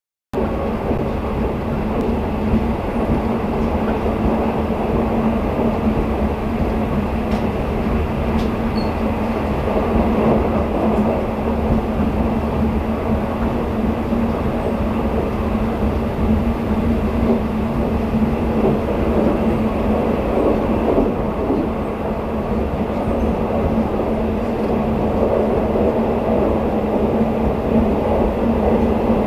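Steady running noise of the Twilight Express sleeper train at speed, heard from inside a passenger coach: a continuous wheel-on-rail rumble with an even low hum. It starts abruptly just after the opening.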